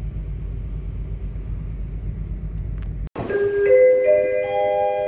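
A steady low rumble, as of wind and engine on a ship's open deck, cuts off suddenly about three seconds in. A music intro follows: bell-like mallet-percussion notes enter one after another in rising steps and ring on together.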